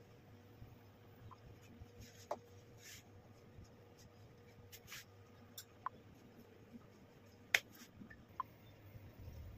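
Faint rustling and scraping as jam roll cakes are rolled by hand through a granular coating, with a few light clicks scattered through, the sharpest about three-quarters of the way in. A steady low hum sits underneath.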